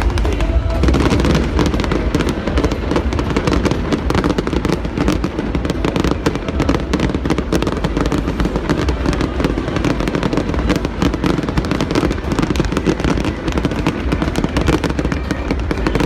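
Fireworks display going off in a continuous barrage of rapid, overlapping bangs and crackles, with no break.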